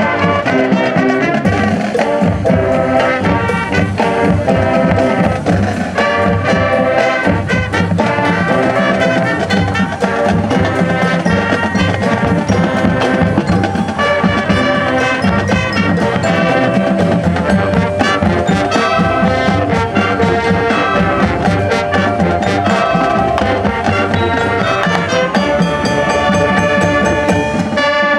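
High school marching band playing a Latin-style field show: brass with drumline and front-ensemble mallet percussion, marimba and xylophone, sounding continuously.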